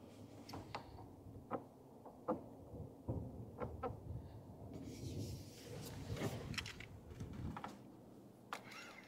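Scattered light knocks and clicks of gear being handled in an aluminum fishing boat, with a few seconds of rushing noise in the middle.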